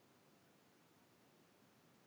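Near silence: a faint, even hiss with no distinct events.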